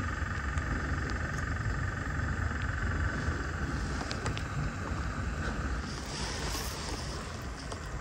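Outdoor ambience by the water: wind rumbling on the microphone, with a steady high-pitched background chorus that fades about six seconds in.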